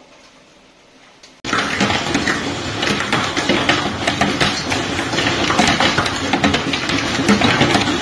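Faint hiss of rain, then, about a second and a half in, a sudden loud, dense clatter of hailstones striking hard surfaces: many rapid sharp impacts.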